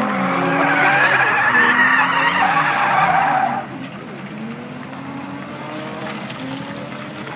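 A drifting Nissan 240SX with a turbocharged KA24 engine: the tyres squeal loudly as it slides sideways, with the engine revving underneath. The squeal cuts off about three and a half seconds in, and the engine goes on more quietly.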